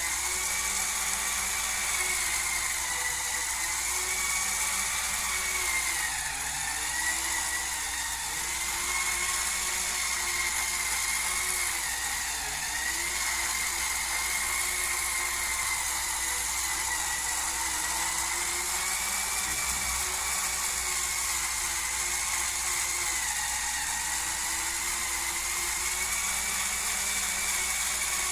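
Hurricane Spin Scrubber's small electric motor spinning its brush with a steady high whine. The pitch sags briefly several times, as the brush takes load.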